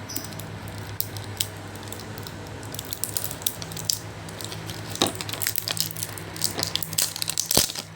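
Toy packaging handled and pried open: scattered clicks and crackles of plastic that come thicker in the second half, over a steady low hum.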